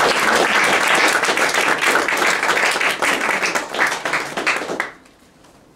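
Small audience applauding with many separate hand claps, thinning out and stopping abruptly about five seconds in.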